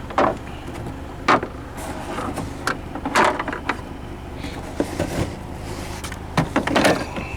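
Scattered sharp knocks and short clattering rustles from handling in an engine bay while searching for a ground bolt, over a steady low hum.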